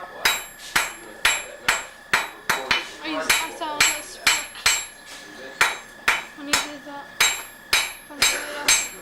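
Blacksmith's hand hammer striking hot iron on an anvil, about two blows a second with a short pause near the middle. Each blow rings, and a high metallic ring carries on between the blows.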